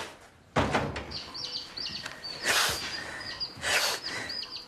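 A lone young chick peeping: short, high chirps, several a second, starting about a second in. A door shuts with a thump about half a second in, and two brief rustles come between the peeps.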